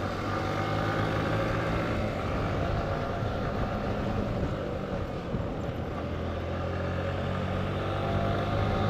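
Motorcycle engine running at a steady cruising speed while being ridden, with wind rushing past; the engine note starts to rise near the end.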